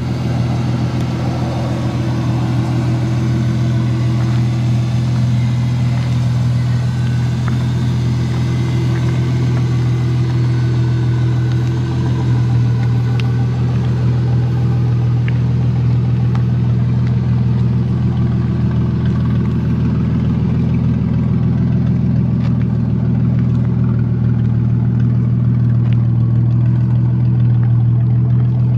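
Car engine idling steadily with a low, even exhaust hum.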